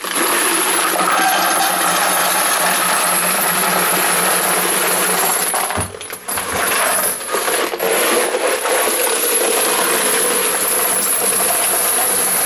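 Spent 9mm brass cartridge cases being poured into a tumbler: a dense, continuous metallic clatter of many small cases, with a short break about six seconds in.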